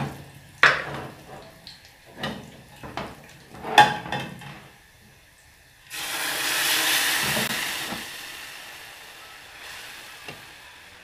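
Spoon and ladle knocking a few times against aluminium pots, then, about six seconds in, a sudden loud sizzle that slowly dies away as bean broth is ladled into hot oil and garlic in a pan.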